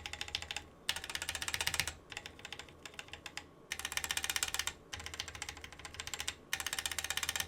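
Typing on a Drop Carina keyboard fitted with factory-lubed Gateron Cap Yellow linear switches and pudding keycaps: three fast runs of keystrokes, each about a second long, near the start, in the middle and near the end, with slower typing between.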